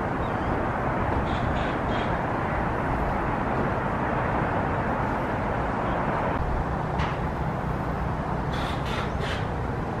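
Steady noise of distant city traffic, with a bird calling in two short runs of three or four quick calls, about a second in and again near the end.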